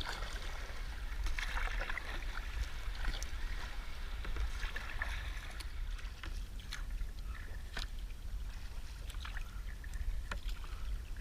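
Sea kayak being paddled: the paddle blades dip and splash in calm water stroke after stroke, with scattered sharp drips and ticks, over a steady low wind rumble on the microphone.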